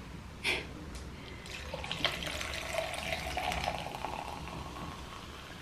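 Carbonated Celsius energy drink poured from a can over ice into a tumbler, splashing and fizzing, the pitch of the pour rising slightly as the cup fills.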